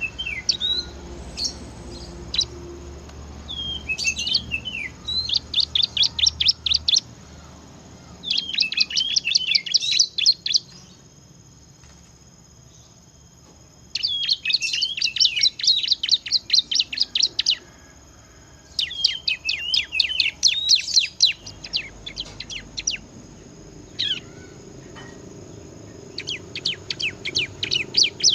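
Bar-winged prinia (ciblek) singing hard: phrases of rapid, sharp repeated notes lasting two to four seconds each, with short pauses between them, the rattling 'ngebren' style that bird keepers prize.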